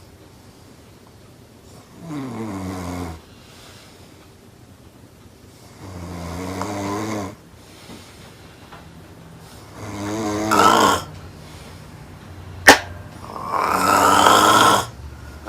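Loud snoring: four snores about four seconds apart, each louder than the one before. A sharp click, the loudest sound, comes just before the last snore.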